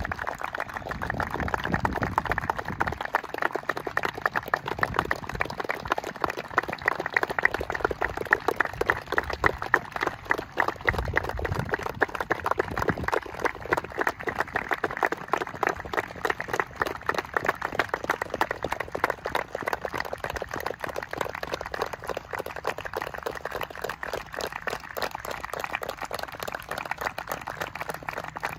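Steady hand-clapping applause from a lined-up group of footballers and the referee: many hands clapping at once in a dense patter.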